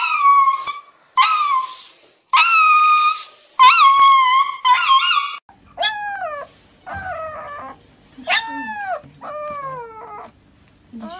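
Husky puppies crying in distress while held down at the vet for an injection. In the first half come about five long, loud, high wails. After a cut, shorter whimpering cries follow, each falling in pitch.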